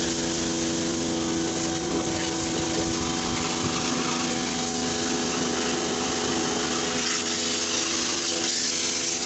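Pressure washer running steadily, its pump holding a constant hum under the hiss of the water jet striking the concrete floor.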